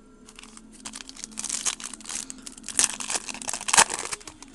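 Shiny foil wrapper of a 2008 Donruss Gridiron Gear hobby card pack crinkling and tearing open in the hands, an irregular run of sharp crackles with the loudest snaps about three and four seconds in.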